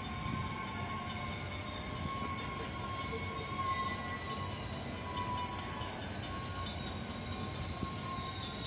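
Freight cars moving slowly during shunting, their steel wheels squealing against the rail in a steady high whine of several held tones that waver slightly, over a low rolling rumble.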